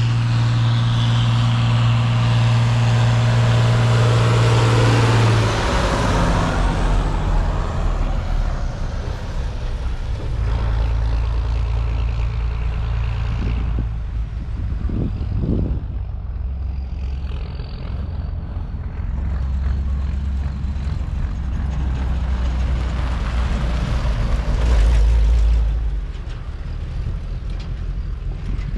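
A large vehicle engine running. It holds a steady pitch for about five seconds, then drops lower and runs with a rumble that rises and falls in load.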